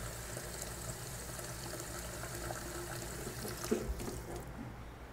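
Kitchen tap running into a bowl, filling it with water. There is a short knock about three and a half seconds in, and the water stops soon after.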